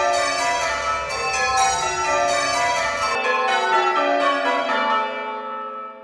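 Recorded church tower bells played through a bell-ringing simulator, struck one after another in quick succession as in change ringing. The strikes stop about five seconds in and the bells' hum dies away.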